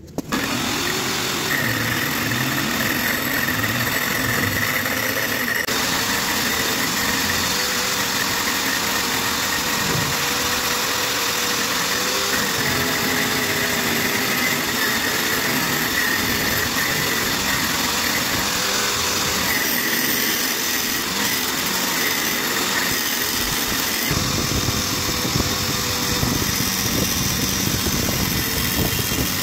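Homemade mini lathe driven by a juicer's electric motor, running steadily with a high whine. Its sound shifts about six seconds in and again near the end.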